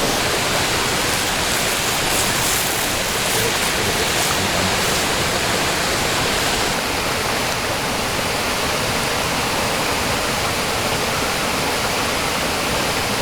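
A small creek's water running steadily.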